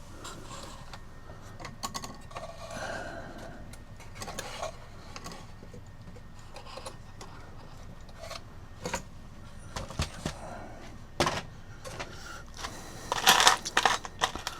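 Scattered light clicks and knocks of parts being handled inside a cuckoo clock case as the bellows are fitted, with a quick cluster of clicks near the end.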